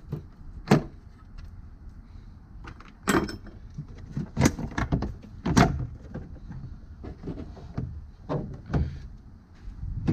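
Plastic push-pin clips and a plastic cowl panel being prised loose with a trim-removal tool: a handful of sharp clicks and knocks, loudest at about three-quarters of a second, three seconds, four and a half seconds and five and a half seconds in.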